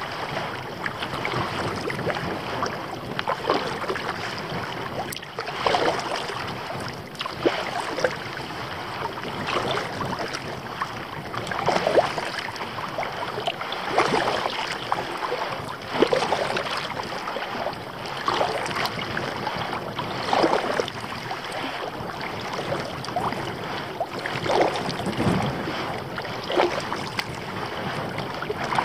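Kayak paddle strokes splashing into the water about once every two seconds, over a steady wash of water along the hull of an Old Town Otter kayak.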